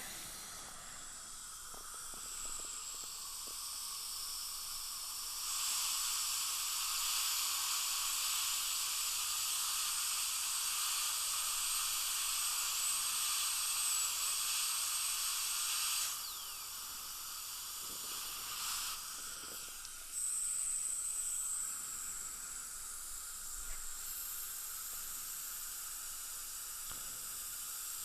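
High-speed dental handpiece cutting an access opening through a porcelain implant crown: a thin, high whine over hiss. It runs for about ten seconds, dipping slightly in pitch twice, then comes again briefly later. A steady lower hiss continues between the runs.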